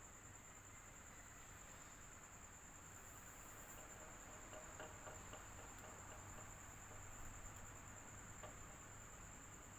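Faint, steady fan noise with a continuous high-pitched cricket trill over it.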